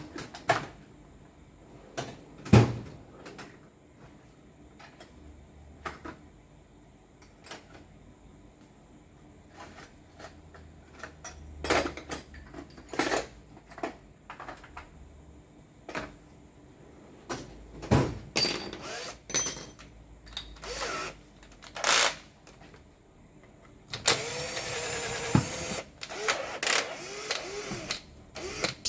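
Tool and metal-part handling: scattered sharp knocks and clicks at irregular intervals, the loudest about two and a half seconds in. About 24 seconds in a harsh, steady noise runs for a second or two, then returns briefly near the end.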